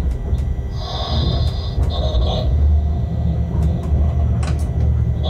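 Shunting locomotive running slowly through a rail yard, heard from its cab: a steady low rumble with scattered clicks of wheels over rail joints and points, and two short high-pitched squeals about one and two seconds in.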